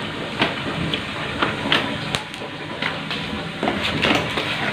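Hand stirring through shrimp in a plastic bucket of water: wet sloshing with scattered small clicks and knocks over steady background noise.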